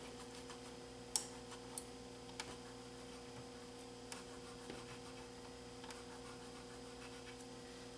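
Faint steady mains hum, with a few light ticks and scratches about one to four seconds in from fingers cleaning a Betamax VCR's rubber pinch roller.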